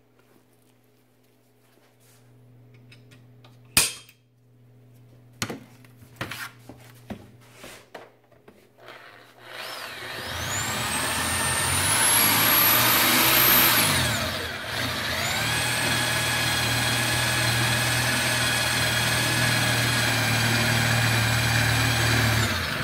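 Electric drill boring into square steel tubing clamped in a vise. The motor whine climbs in pitch as it spins up and dips briefly about two-thirds of the way through. It then runs steadily under load and stops just before the end. Before the drilling there are several sharp knocks and clicks of handling.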